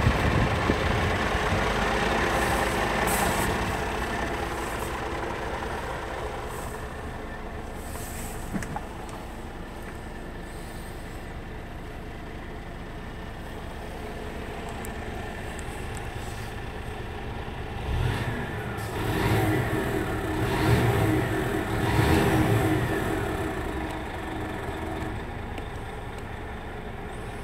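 Scania R440 truck's 13-litre inline-six diesel running at idle, with a few brief louder surges about two-thirds of the way through.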